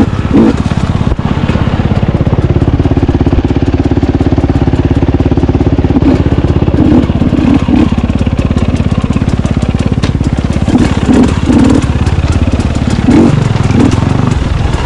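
Dirt bike engine running on a trail ride, its note held steady for a few seconds early on, then rising and falling in short bursts as the throttle is worked on and off.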